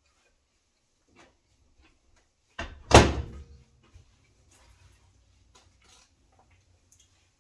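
A door shutting: a light knock, then a loud thud with a brief ringing tail about three seconds in, followed by a few small clicks.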